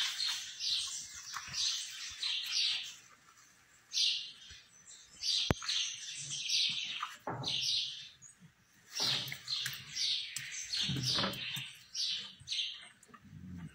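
Birds chirping in short, repeated calls, two or three a second, pausing about three seconds in and again about eight seconds in.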